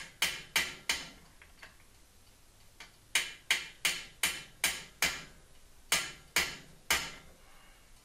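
Hammer tapping to drive a sealed cartridge bearing into the press-fit shell of a Gary Fisher Evolution bottom bracket: three quick taps, a pause of about two seconds, then two runs of sharp taps about three a second.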